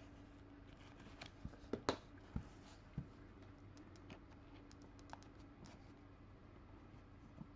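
Faint, irregular clicks and taps of hands opening a trading-card box and handling its packaging and cards, with a cluster of louder clicks about two seconds in. A low steady hum lies underneath.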